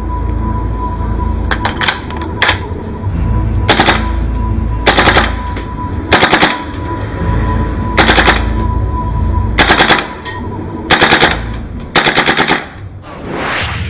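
Airsoft gun with a Tremor recoil system firing about nine short bursts of rapid automatic fire, one to two seconds apart, over background music. A rising whoosh comes near the end.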